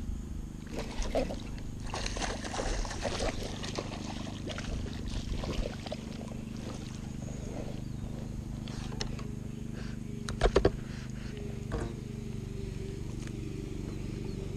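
Fishing reel being cranked with a steady gear purr as a hooked bass is reeled in, with scattered clicks and knocks of line and rod handling and two sharp knocks about ten seconds in.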